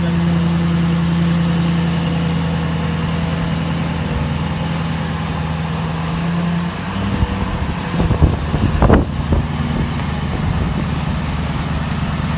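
Duramax diesel pickup engine running steadily while the truck drives through mud, its drone dropping in pitch about two-thirds of the way through. A few short knocks and clunks come about eight to nine seconds in.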